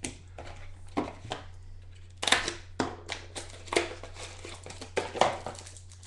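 Trading cards being handled and slid against one another, with a clear plastic card sleeve: a series of short rustles and swishes, roughly one a second, over a steady low hum.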